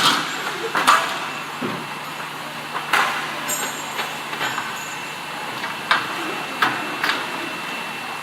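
An aluminium-profile end milling machine's motor running steadily, with a constant hum and a thin high whine. About seven sharp knocks sound at irregular intervals over it.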